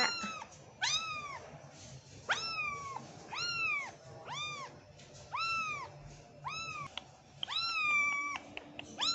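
A young kitten meowing over and over, about eight high-pitched meows roughly a second apart, with one longer meow near the end.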